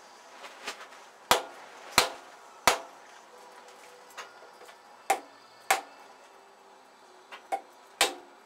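Hammer blows on the cylinder head of a 7.3L Powerstroke diesel V8, knocking it loose from the block after the head bolts have been removed. Sharp metallic knocks, each with a short ring: three hard ones about two-thirds of a second apart, two more around five seconds in, and a quick cluster near the end.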